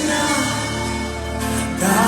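Christian worship music, with several voices singing together over sustained chords.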